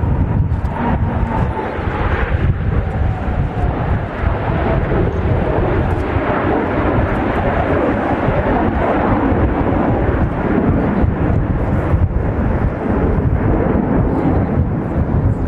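Military jet aircraft roaring past overhead in an air display, with a whine that falls in pitch over the first few seconds.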